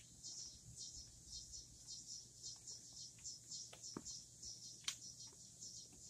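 Insects chirping in a steady high-pitched pulse, about three chirps a second, with a single sharp click about five seconds in.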